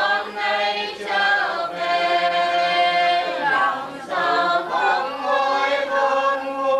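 Unaccompanied high voices of mourners singing or wailing a funeral lament, holding long notes of a second or two with short breaks between them.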